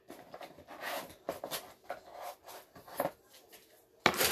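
Small nail-care items and packaging being handled on a table: light clicks, taps and rustles, then one short, louder rush of noise about four seconds in.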